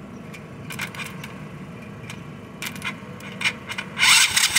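Short crackling clicks as a jumper-cable lead is touched to ground several times. About four seconds in, the ATV's electric starter motor engages with a loud whirring whine, cranking the engine over: the starter works.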